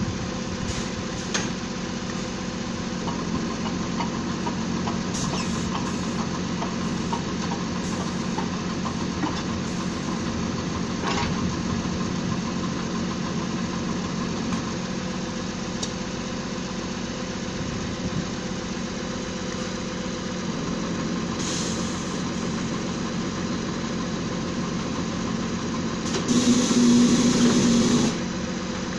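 Drilling rig's engine running steadily. Near the end a louder burst with a hiss lasts about two seconds.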